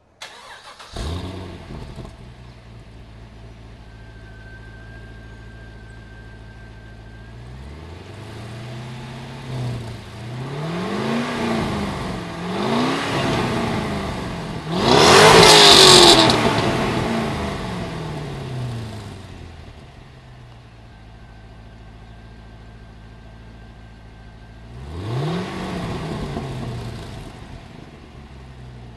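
2005 Pontiac GTO's 6.0-litre LS2 V8 on its stock exhaust, starting about a second in and settling to a steady idle. It is then blipped through a run of revs, the hardest about halfway through, followed by one more rev near the end.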